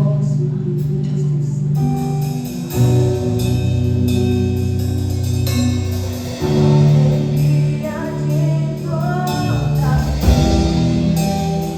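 Live worship band music: a singer over guitar and sustained bass chords in a slow instrumental passage.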